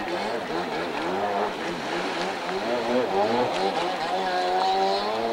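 Stand-up jet ski two-stroke engine revving, its pitch swinging up and down repeatedly as the rider works the throttle, then holding steadier near the end.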